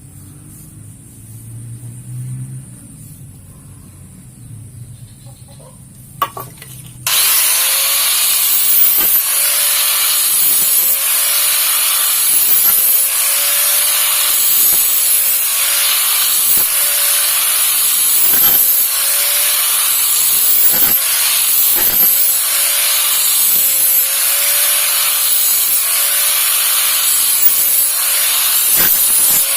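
Steel machete blade being worked with an abrasive tool during a repair: a loud hissing scrape that starts suddenly about seven seconds in and goes on in repeated strokes, roughly one a second.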